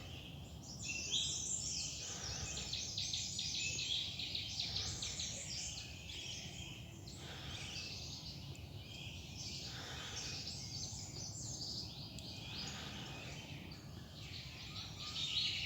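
Many forest birds chirping and trilling at once, a dense, unbroken chorus of quick high chirps overlapping one another, over a faint low rumble.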